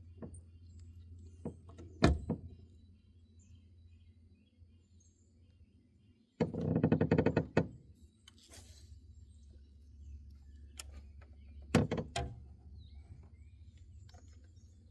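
Fishing tackle being handled in a boat: scattered clicks and knocks, with a loud burst of rapid clicking lasting over a second about six seconds in and another short cluster of clicks near twelve seconds, over a low steady hum.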